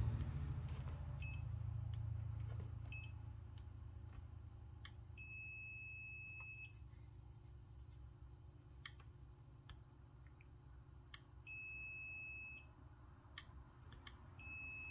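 Pen-style digital multimeter (Kaiweets ST100) sounding its high, steady continuity beep as the probe tips are touched together: two short blips in the first few seconds, then two beeps of about a second each, several seconds apart, with another starting at the very end. Sharp clicks from the probes and the meter's relay fall between the beeps, over a faint low hum; the beeping comes in spurts where it should be continuous, the meter being slow to respond after sleeping.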